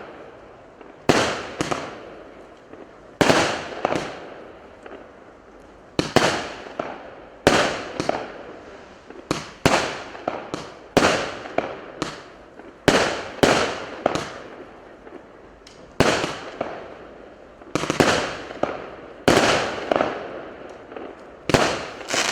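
A consumer firework cake, a battery of 0.8-inch shots, firing repeatedly: sharp bangs come every one to two seconds, often two close together, and each trails off over about a second.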